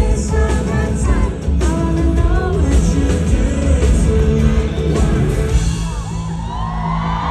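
Live pop-rock band playing with a singer, drums and guitar; near the end the song drops away and the crowd starts cheering.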